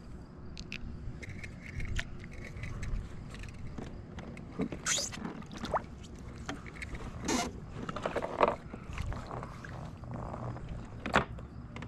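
Scraping and handling noises on a kayak, with several sharp knocks and clicks scattered through.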